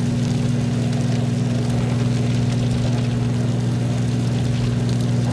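Microwave oven running: a steady low electrical hum.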